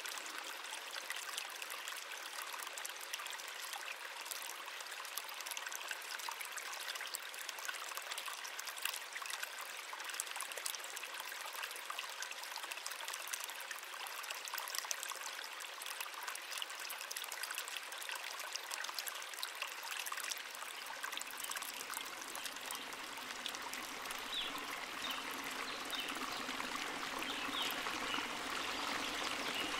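Running water from a small stream or waterfall: a steady, even splashing and trickling rush. About twenty seconds in, a deeper low rush joins and the water grows a little louder.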